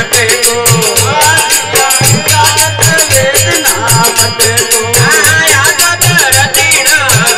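Rajasthani bhajan music: harmonium melody over a steady dholak beat, with a constant jingling of small hand percussion.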